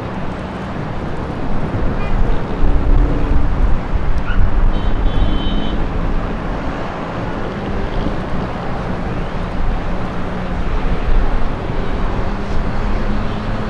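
City street ambience: traffic running steadily, with a brief high-pitched tone about five seconds in.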